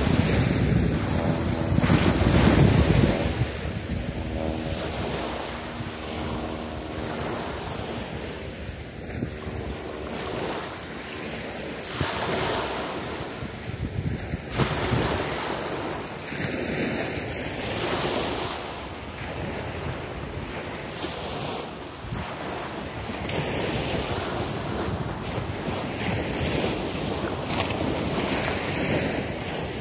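Wind buffeting the microphone in gusts, strongest and lowest in the first few seconds, over small waves washing on the shore.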